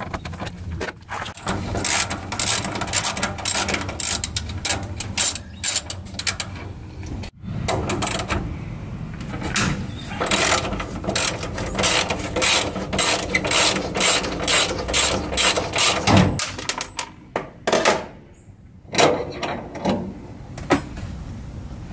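Hand ratchet wrench clicking in runs of rapid clicks as a bolt on a bus bay door's strut bracket is turned, with a short pause about seven seconds in and a quieter spell near the end.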